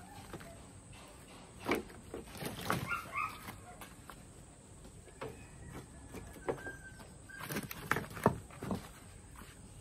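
Dry coconut palm frond stalks being gathered and stacked by hand: a run of irregular hollow wooden knocks and clatters with dry rustling, the loudest knock near the end.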